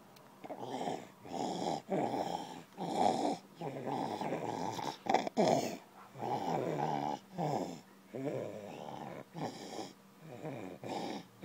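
A toddler's noisy, rasping breaths, about one a second: stridor, the sign of a narrowed upper airway.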